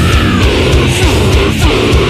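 Heavy metal music: heavily distorted electric guitars over fast, dense drumming.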